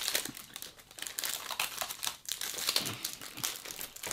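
Shiny snack wrapper of a wafer bar being handled and opened, crinkling and crackling irregularly.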